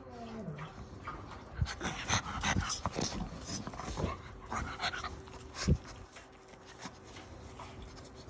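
Pugs panting and sniffing close up at a person's hand, a run of short, irregular breathy strokes through the middle of the clip, with a thump about five and a half seconds in.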